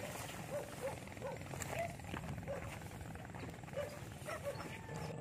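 Faint short animal calls, each rising and falling in pitch, repeating irregularly about twice a second over a low steady hum.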